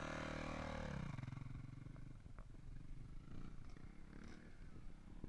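Dirt bike engine revving as the bike pulls away, its pitch dropping and the sound fading about a second in. Faint engine drone from bikes farther off follows.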